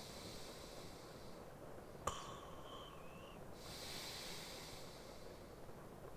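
A sleeping man's slow breathing, two long breaths, over a steady hiss of rain ambience. A sharp click comes about two seconds in.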